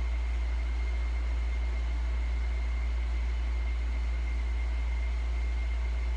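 Steady low hum with an even background hiss and a faint, constant high-pitched whine: unchanging machine or room noise.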